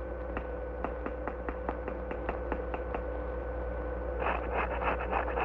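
A string of sharp, evenly spaced clicks, about five a second, then a quicker, brighter flurry of clicks near the end, over the steady hum of an early optical sound track.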